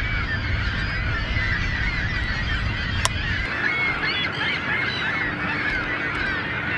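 A large flock of waterbirds calling continuously, many overlapping calls at once. A low rumble under it drops away about halfway through, and there is one sharp click around three seconds in.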